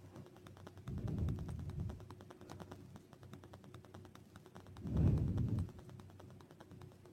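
Handling noise from hand needlework: low rubbing bumps about a second in and a louder one about five seconds in, over a rapid run of faint, even clicks and a faint steady hum.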